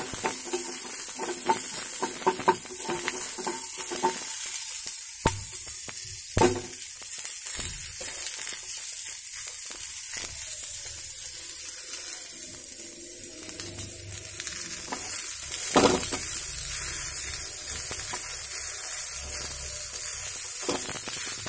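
Onion pieces sizzling in oil in a steel pot, a steady hiss, while a wooden spatula stirs and knocks against the pot, tapping several times in the first few seconds, with one louder knock about three-quarters of the way through.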